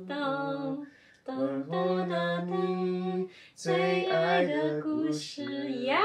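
A woman singing a tune unaccompanied, in held notes that step up and down. It breaks off briefly twice and slides up in pitch near the end.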